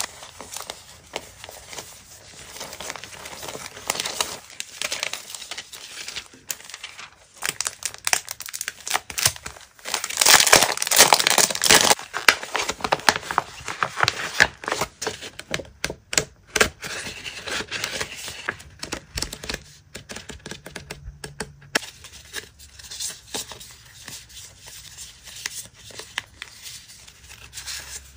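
Clear plastic packaging crinkling and tearing as packs of paper stickers are handled and opened, loudest about ten seconds in, followed by softer rustling of paper stickers being shuffled.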